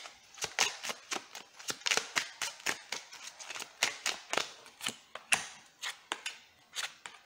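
Deck of tarot cards being overhand-shuffled between the hands: an irregular run of short card slaps and snaps, about three or four a second.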